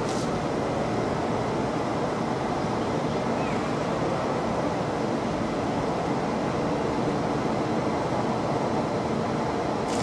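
Steady outdoor background noise: a dense, unchanging hiss and rumble of wind and distant road traffic.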